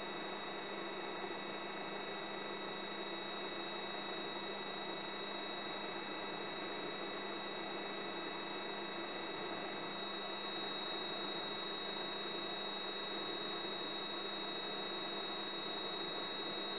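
Steady hiss with an electrical hum and a high, thin steady whine. It carries on unchanged over the black frame, so it is the background noise of an old silent film transfer, not sound from the scene.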